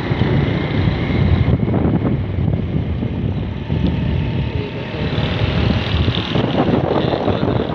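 Wind buffeting the microphone from a moving vehicle, with the vehicle's running noise underneath.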